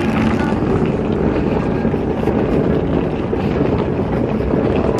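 Hard plastic wheels of rolling suitcases running over rough asphalt: a loud, steady, gritty rumble.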